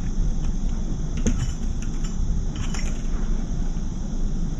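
A crow pecking dry food from a stainless steel bowl: a few sharp, scattered clicks of its bill on the metal and on the kibble, over a steady low background rumble.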